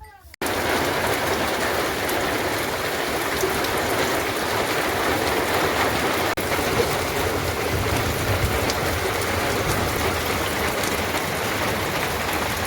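Heavy rain falling, a steady dense hiss that starts abruptly about half a second in.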